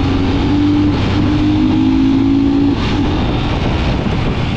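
Royal Enfield Scram 411 motorcycle's single-cylinder engine running steadily under way, its pitch shifting up and down a little, over a steady rush of road and wind noise.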